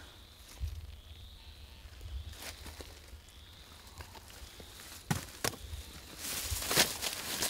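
Digging bamboo shoots out of the forest floor: a few scattered knocks, then a brief rustling scrape near the end with one sharp knock in it.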